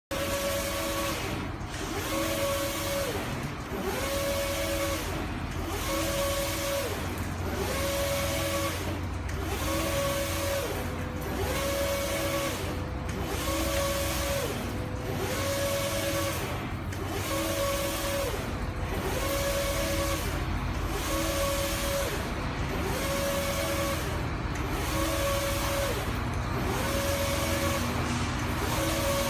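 Industrial belt textile printer's two-printhead carriage shuttling back and forth across the print bed. Each pass carries a whine that drops in pitch as the carriage slows and reverses, about one pass every two seconds, over a steady low machine hum.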